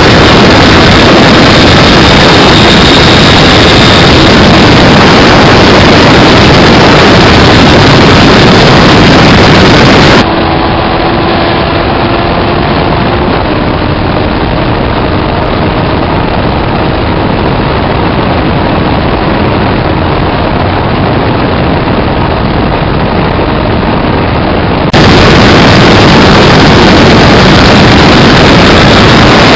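Motorcycle engine running so loud that the recording overloads into a dense, distorted noise. About ten seconds in the sound cuts abruptly to a duller, slightly quieter recording, and cuts back about fifteen seconds later.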